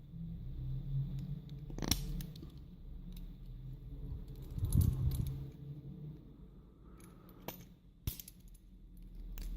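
Small metal lock parts of an ASSA euro cylinder being handled during disassembly: a scattering of sharp light metallic clicks and taps, a few seconds apart, with a small cluster about halfway through.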